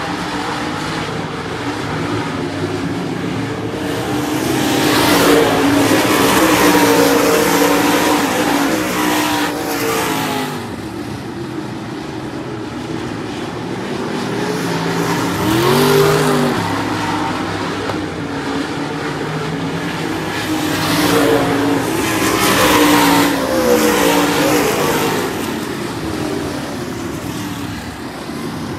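A field of dirt modified race cars running laps on a dirt oval. The engine noise swells twice as the pack goes by, about five and twenty-two seconds in, and the engine pitches fall away after each pass. Between the swells, one car's engine rises and falls in pitch as it goes past.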